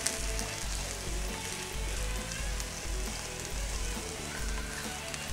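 Chopped onion sizzling in hot olive oil in a nonstick frying pan as it is sautéed and stirred with tongs, a steady light crackle.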